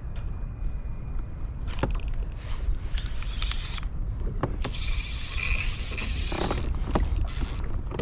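Spinning fishing reel whirring in two bursts, the second longer and louder, with scattered clicks. A low wind rumble on the microphone runs underneath.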